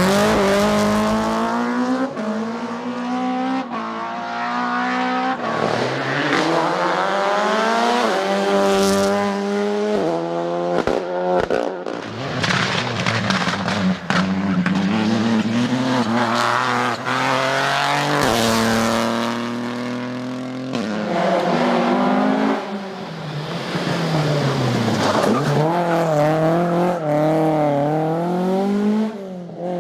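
Rally cars driven flat out on a stage, one after another: engines revving up through the gears in stepped climbs and dropping back when lifting off, with a few sharp cracks.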